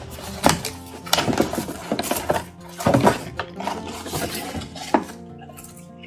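Background music, with a few irregular knocks and taps of cardboard packaging being handled and slid out of its box.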